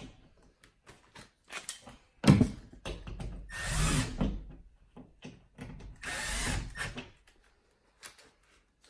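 Power drill-driver running in two runs of about a second each, driving the screws that fasten a low-voltage pass box into drywall. Clicks and knocks of handling come before the first run.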